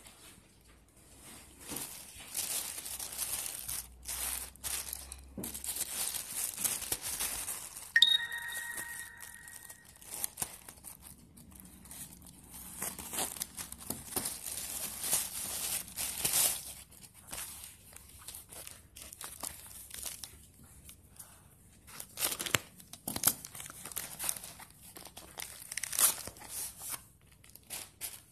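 Grey plastic poly mailer bag crinkling and tearing as it is handled and pulled open, in irregular bursts of rustling. About eight seconds in, a short pitched ding rings out and fades.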